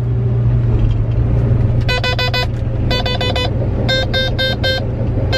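Combine engine running with a steady low drone inside the cab. From about two seconds in, an electronic cab alarm beeps in quick bursts of four or five, about once a second: the warning that the grain tank is full.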